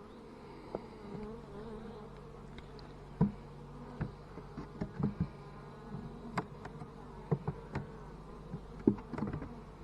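Italian honey bees buzzing steadily in an open hive, with scattered sharp knocks and clicks of wooden frames and tools being handled, the loudest about three seconds in and near nine seconds.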